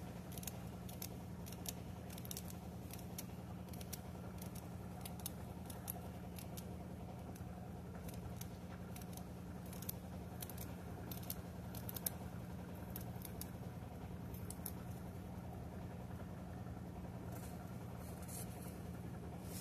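A paring knife cutting pieces off a celery stalk held in the hand, a run of faint, crisp clicks at an uneven pace, over a steady low hum.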